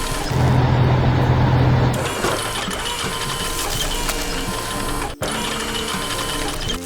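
Cartoon soundtrack of background music mixed with mechanical machine sound effects, clicking and whirring. A louder low machine hum comes in about half a second in and stops near two seconds, and the sound cuts out for an instant about five seconds in.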